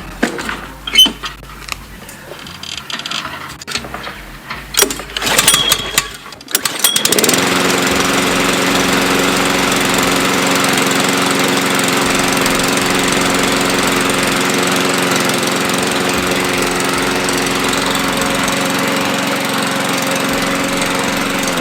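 Freshly serviced four-stroke petrol lawn mower being started: a few seconds of scattered knocks and handling noises, then the engine catches about seven seconds in and runs steadily.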